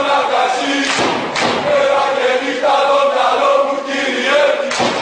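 Football supporters chanting in unison, a sung crowd chant, with several heavy thuds cutting through it.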